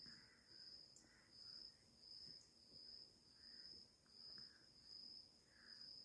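Near silence: a faint, steady high-pitched trill in the background.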